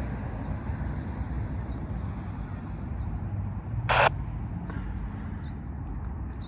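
Steady low outdoor rumble of background noise, with one brief loud noisy burst about four seconds in.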